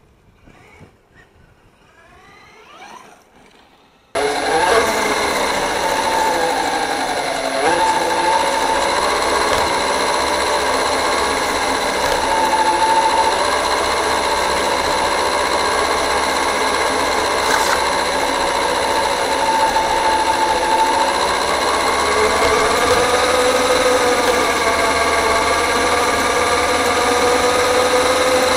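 After a few quiet seconds, the whine of an FTX Carnage 2.0 RC crawler's brushless 4350kv motor and geartrain starts abruptly, loud and close, picked up by a camera riding on the truck. Its pitch rises and falls as the throttle changes.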